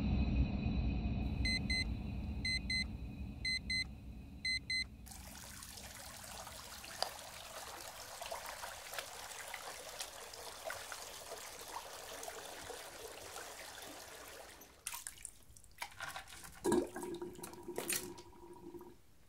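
Music fading out, with four electronic double beeps. Then a washbasin tap runs steadily for about ten seconds while someone washes at the basin, and the water stops near the end, followed by a few knocks and a brief squeak.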